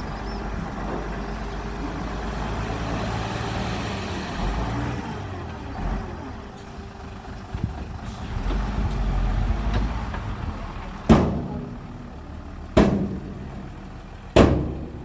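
Heavy diesel dump-truck engines running, rising and falling in level. Loud, short, sharp bursts follow three times in the last few seconds.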